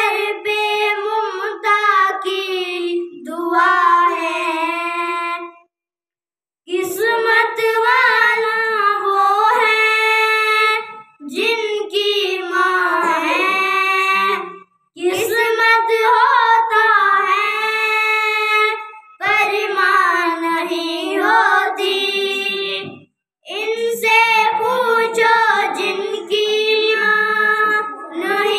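A boy singing unaccompanied in a high child's voice, in long held phrases with brief pauses about six, fifteen and twenty-three seconds in.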